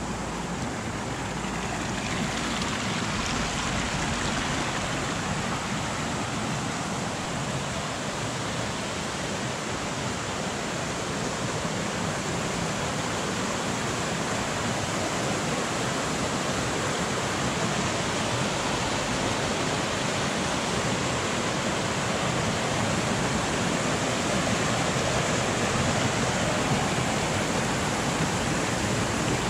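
Small river running over little cascades, a steady noise of flowing water.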